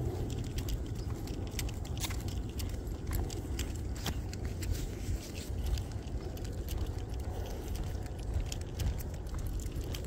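Irregular metal clinks and jingles of a dog's leash clip and harness hardware as the dog walks on the leash, over a steady low rumble.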